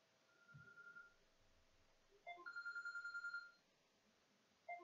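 Telephone ringing with a warbling electronic trill, in repeated bursts: a faint ring just after the start, a louder ring about two seconds in, and another beginning near the end.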